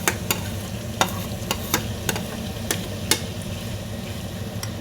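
A spoon stirring chicken and sautéed capsicum and onion in a hot frying pan, with sharp, irregular clicks of the spoon against the pan about every half second over a steady sizzle.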